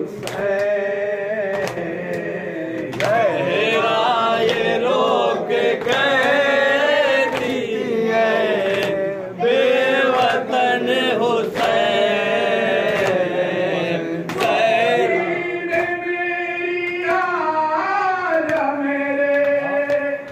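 A man recites a noha (Shia lament for Imam Hussain) into a microphone while a group of men and boys chant along, with a steady beat of hands striking chests (matam) about once a second.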